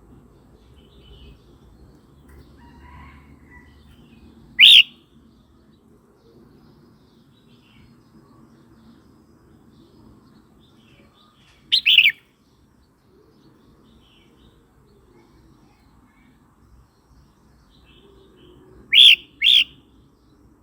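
Red-whiskered bulbul calling in short, loud, whistled notes spaced several seconds apart: one about five seconds in, a quick two- or three-note burst about halfway, and two notes close together near the end.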